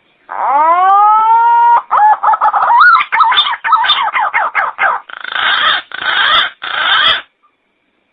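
Call of a lapiting punay, a green pigeon: a whistle that rises in pitch, then quick wavering, warbling notes, ending in three rough, hoarse bursts before it cuts off suddenly.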